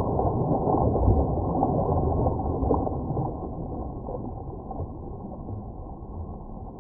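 Muffled rushing and gurgling of stream water, as heard by an action camera held underwater, with all the upper sound cut away. It grows quieter over the last few seconds.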